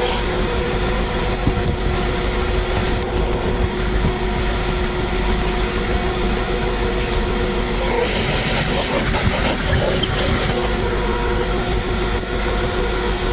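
Vacuum cleaner motor running steadily, with a constant whine over an even rush of air.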